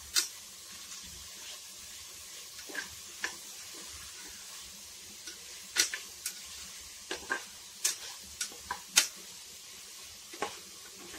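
Vegetables sautéing in a pressure cooker with a soft steady sizzle, while a spoon stirs them, knocking and scraping against the pot in irregular sharp clicks.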